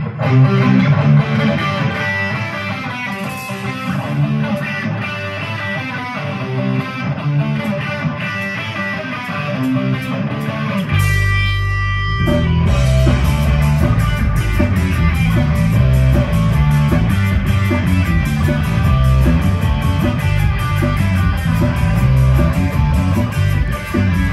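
Live rock band playing an instrumental passage: electric guitar, with the bass and drums filling in fully about halfway through.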